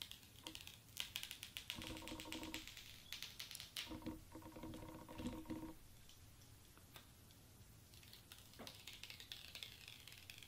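Clear protective plastic film being peeled off a new iPhone XS Max: a quiet, fast crackle of fine ticks, with two short pitched squeaks of the film partway through. It thins to faint crackling for the last few seconds.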